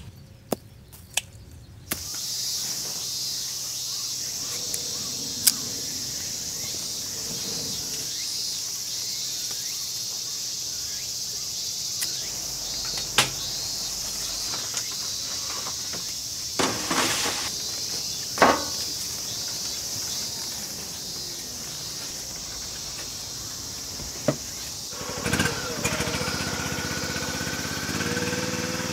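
Footsteps through grass in the first two seconds, then a steady high insect drone across the orchard. Several sharp knocks of plastic harvest crates being handled come through it, and near the end a small engine starts running.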